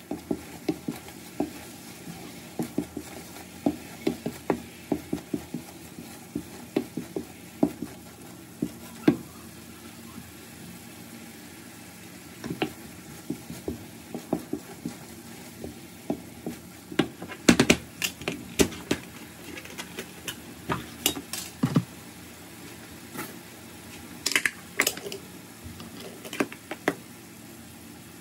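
Wooden spoon stirring a cooking carrot barfi mixture in a frying pan, scraping and knocking irregularly against the pan over a steady sizzle. The knocks come thickest a little past halfway and again about three-quarters through.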